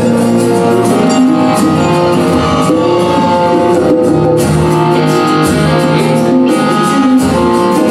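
Live folk-rock band playing an instrumental passage between verses: strummed acoustic guitars with a melody of held notes over them, no singing.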